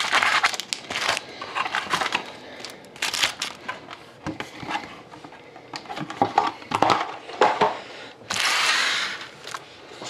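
Trading-card pack wrappers being crinkled and torn open by hand, with irregular rustles and a longer continuous rustle about eight seconds in.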